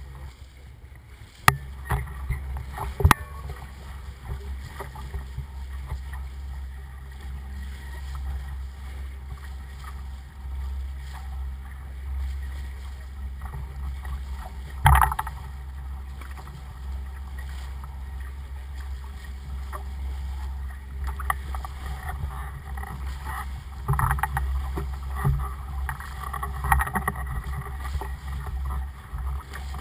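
Sea water rushing and splashing against a sailboat's bow as it motors along, over a steady low rumble. There are a few sharp knocks about a second and a half, three seconds and fifteen seconds in, and heavier splashing near the end.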